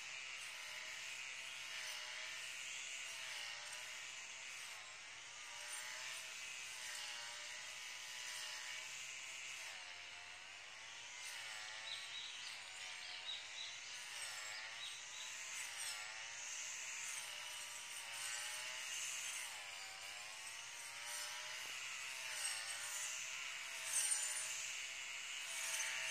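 Distant brush cutter engine running while cutting grass, its pitch rising and falling again and again as the blade takes on and sheds load.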